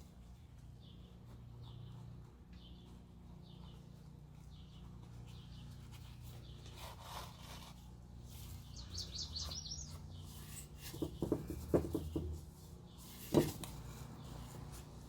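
Faint bird chirps repeating about every half second over a steady low hum, with a quick trill about nine seconds in. Several soft knocks come a little past eleven seconds, and a sharper knock follows near the end.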